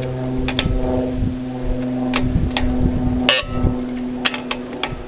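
Lug wrench working the lug nuts on a travel trailer wheel: a series of sharp metal clicks and clinks as the nuts are checked for tightness one after another, the loudest a little past three seconds in. A steady mechanical hum runs underneath.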